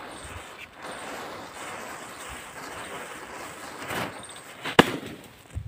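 Matchsticks flaring and hissing as the flame runs along a chain of matches, swelling briefly as a firecracker's fuse catches. Nearly five seconds in, a small Diwali firecracker goes off with one sharp bang, followed by a softer thump.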